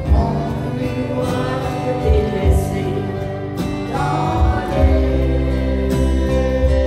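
A man and a woman singing a country-western duet live into microphones, over a live band accompaniment.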